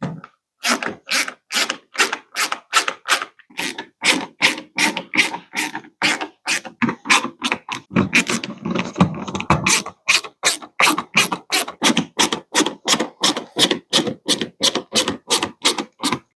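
Rhythmic scraping strokes from a hand tool, about two and a half a second, very even, with a fuller, lower stretch around the middle.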